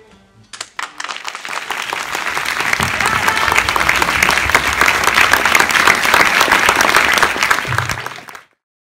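Theatre audience applauding: a few scattered claps swell within about two seconds into full, loud applause, which cuts off abruptly near the end.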